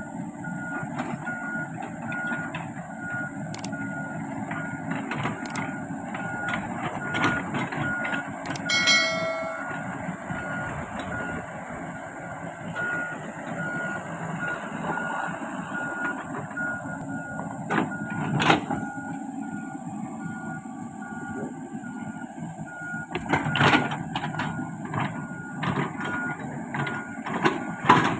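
Komatsu PC78 excavator running, with a short beep repeating about twice a second from its travel alarm. Sharp metallic clanks come now and then, the loudest past halfway and near the end, and a brief horn-like blast sounds about nine seconds in.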